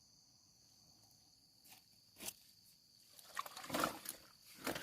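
Faint steady chirring of insects. A couple of short knocks come about two seconds in, and rustling, handling noises build over the last second and a half.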